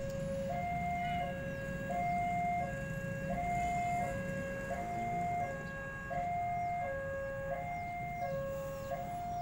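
Railway level crossing warning alarm sounding for an approaching train: an electronic two-tone signal, a higher and a lower note each held about three-quarters of a second, alternating steadily over a low rumble.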